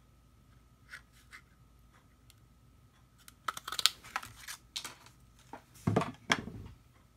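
A handheld EK Success scalloped square paper punch cutting through a strip of patterned cardstock, with a short crackle of sharp clicks and crunches a little past halfway. Two louder dull knocks follow near the end.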